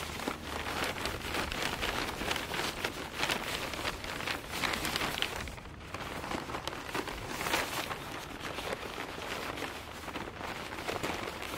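Wood fire crackling in a camp wood stove: a dense, continuous run of small pops and snaps over a hiss, with a few louder flurries of crackles.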